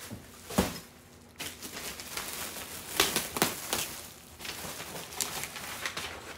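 Clear plastic wrapping crinkling and rustling as padded speaker carry bags are handled and pulled about in their plastic bags, with a thump about half a second in.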